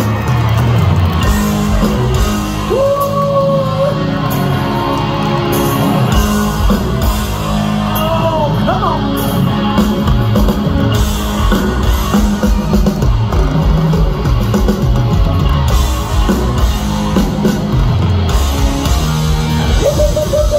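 Live hard rock band playing loudly through a concert PA, heard from within the crowd: electric guitars over a steady drum and bass beat, with singing at times.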